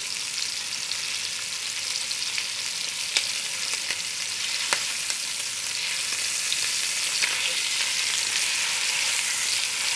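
Beef short ribs searing in hot fat in a cast-iron Dutch oven: a steady sizzle that grows a little louder in the second half, with a couple of sharp clicks of metal tongs against the pot as the pieces are turned.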